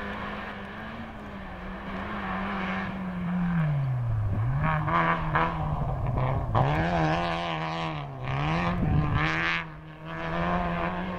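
Rally car engine revving hard on a loose gravel stage. The pitch falls and climbs again several times with throttle lifts and gear changes as the car slides through a corner. Gravel hisses and rattles off the tyres.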